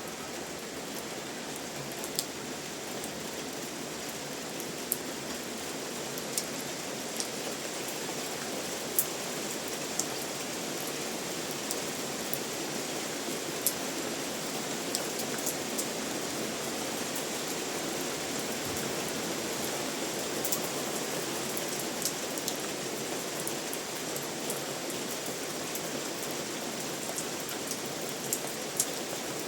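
Steady rain falling, with individual drops ticking sharply and irregularly over the even hiss.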